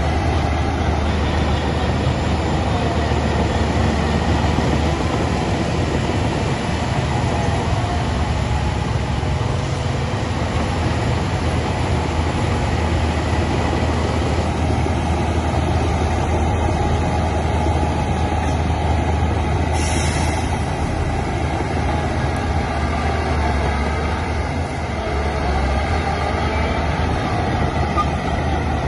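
Heavy diesel construction machinery running steadily with a deep, even drone. A brief hiss about twenty seconds in.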